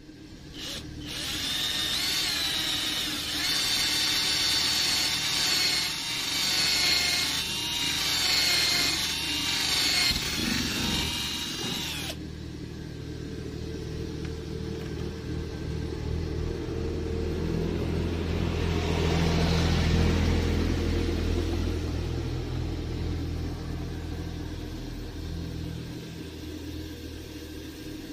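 Electric drill running, its whine dipping and rising in pitch as it bores a hole through the car's plastic front panel beside the number plate. About twelve seconds in the high whine cuts off, and a lower, steadier motor hum carries on, swelling and then fading.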